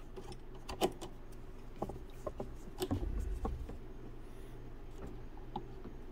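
Faint handling noise: a few light clicks and taps as a silicone water-cooling tube is pushed by hand into a tight filed hole in an RC boat hull, over a steady low hum.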